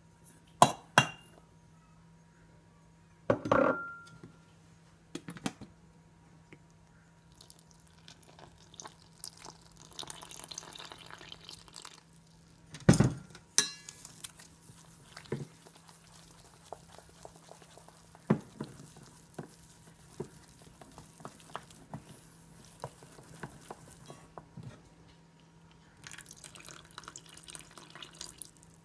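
Stainless steel mixing bowl knocked down on a counter with a few clanks, one ringing briefly. Then a soft hiss of flour going in, and wooden chopsticks stirring and tapping against the bowl. Near the end, water poured in from a jug while the chopsticks keep stirring the batter.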